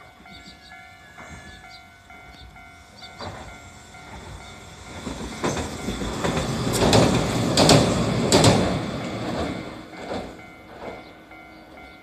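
Hiroden 5000-series Green Mover articulated tram passing. Its running noise builds to a peak about seven to eight seconds in, with several sharp wheel clacks over the rail joints, then fades away.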